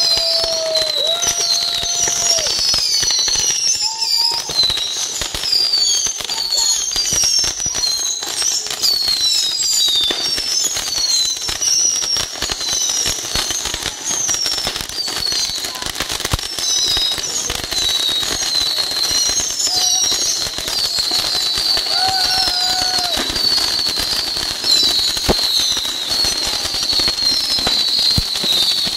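A mass of small 'baby' rockets firing in rapid succession from one ground pack: a dense, continuous crackle of pops with many short, high whistles overlapping throughout.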